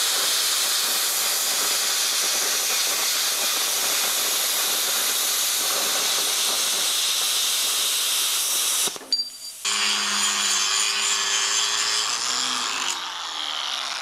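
Plasma cutter's arc hissing steadily as it cuts steel plate, set at 35 amps. The hiss cuts off just before nine seconds in, starts again about a second later with a faint hum beneath it, and drops lower near the end.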